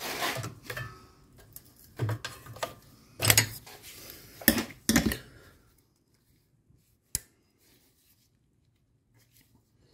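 Plastic electrical connector of a brake pad wear sensor harness being worked loose by hand: a run of clicks and rattles from the housing and its release tab, then one sharp click about seven seconds in. The tab is stiff with dirt and does not depress easily.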